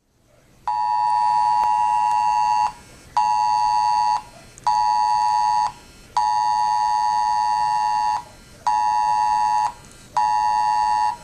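A smartphone sounding the Wireless Emergency Alert attention tone for a flash flood warning (an imminent severe alert): a loud two-pitch tone in a pattern of one long blast and two short ones, played twice with short gaps between.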